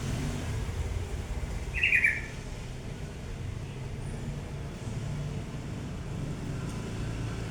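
Prinia (prenjak) giving one short burst of quick, high chirps about two seconds in, over a steady low background rumble.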